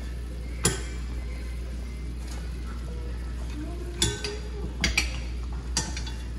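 A few sharp metallic clinks of a utensil against a cooking pot, about four spread over several seconds, over a steady low hum.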